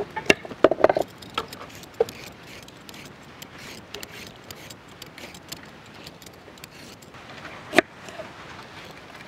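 Carrots dropping into a large aluminium pot of water, a quick run of splashes and knocks in the first second, then faint handling ticks. Near the end comes one sharp crack of a knife cutting through a carrot on a wooden board.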